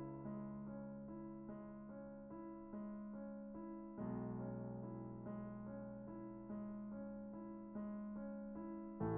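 Background piano music: slow, evenly spaced notes, about one every half second or so, over sustained low chords that change about four seconds in.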